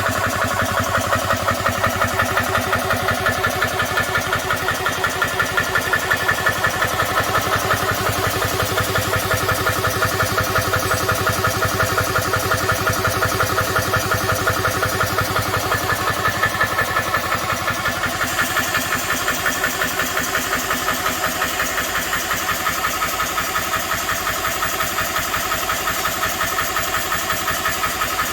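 GX CS2 portable oil-free PCP air compressor running steadily with a rapid, even pumping pulse as it fills an air rifle's reservoir to high pressure. Its tone shifts slightly about two-thirds of the way through.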